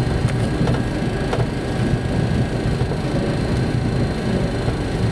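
Steady low rumble in the cockpit of an MD-80 airliner rolling along the runway: its tail-mounted Pratt & Whitney JT8D engines and tyres, with a few faint knocks in the first second and a half.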